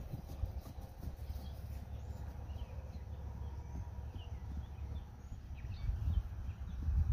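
Faint, scattered bird chirps over a steady low rumble, with a draft horse's hoofbeats on grass fading as it moves away.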